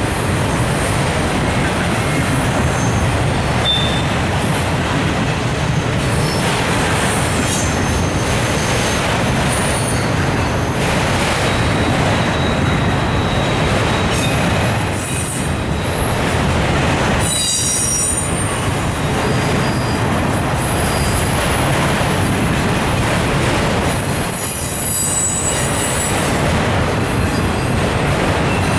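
Norfolk Southern autorack freight cars rolling past, a steady rumble of steel wheels on the rails. Thin high wheel squeals come and go throughout.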